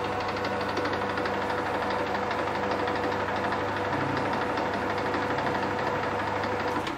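A metal lathe running at a slowed spindle speed: a steady motor-and-gear hum with a fine, fast rhythmic ticking over it. It shuts off right at the end.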